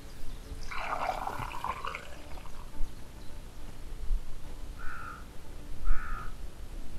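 Water gurgling and splashing in the water-filled borehole as a PVC well casing is pushed down into it, loudest about a second in. Two short squeaks follow, about five and six seconds in.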